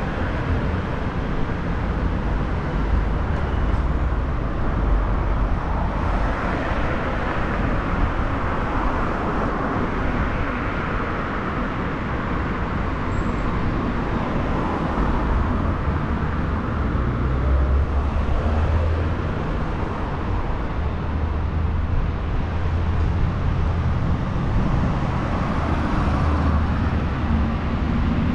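Steady road traffic on a busy city street: car engines and tyres going past in a continuous low rumble that swells a little as vehicles pass.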